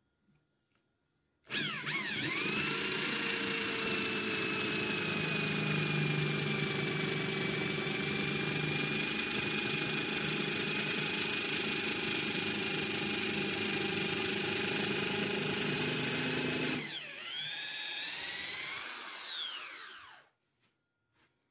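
Electric drill spinning a wooden stick as it is forced through a blade cutter in a wooden block, shaving it into a round dowel. The drill spins up with a rising whine and runs steadily with a high whine over a noisy shaving sound, then drops in level, wavers in pitch and stops about a second before the end.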